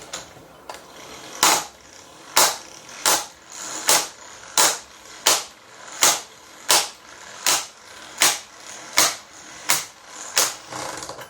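About thirteen sharp metallic knocks, evenly spaced roughly 0.7 s apart and starting about a second and a half in, from the 12V impact wrench working on a lug nut.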